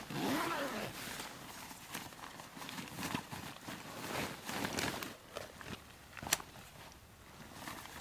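Camouflage fabric and a backpack being handled, with irregular rustling and crinkling, scattered small clicks, and one sharp click about six seconds in.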